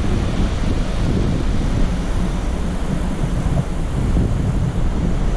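Steady roar of a large waterfall and the fast white-water river below it, Upper Mesa Falls on the Henrys Fork, with wind rumbling unevenly on the microphone.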